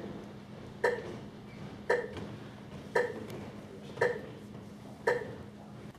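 A steady metronome-style click beat: sharp, pitched ticks about once a second, five in all, over a faint steady hum.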